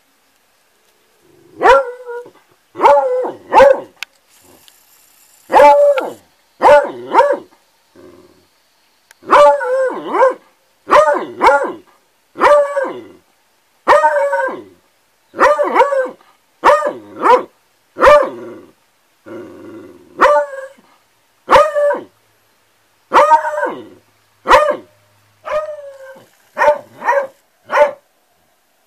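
Beagle howling in a long run of short, pitched bays, about one a second, each dropping in pitch at its end, with a brief pause about eight seconds in.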